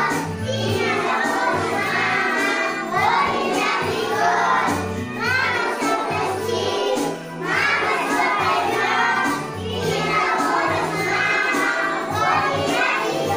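A group of young children singing together over recorded backing music with a bass line.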